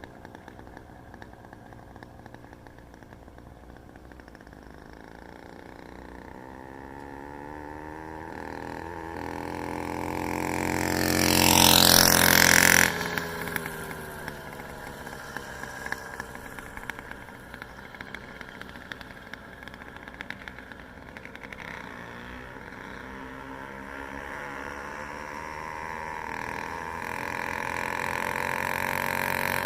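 Motorized bicycle's small engine riding past: it grows steadily louder as it approaches, is loudest about twelve seconds in, drops off sharply as it passes, then grows louder again near the end as it comes back.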